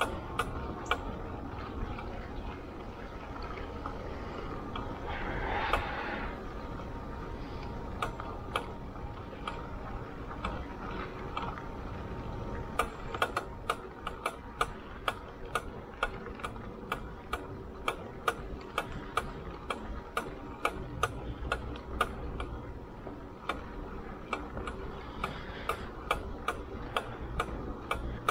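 Delfast electric bike rolling along a gravel trail: steady tyre-on-gravel and wind noise, with sharp ticks from the bike. From about halfway on, the ticks fall into an even rhythm of a little over two a second.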